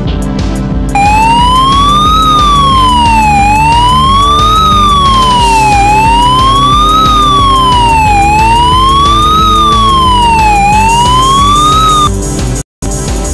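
A wailing siren, its pitch rising and falling slowly about every two and a half seconds, over background music. The siren cuts off about twelve seconds in, followed by a brief dropout to silence.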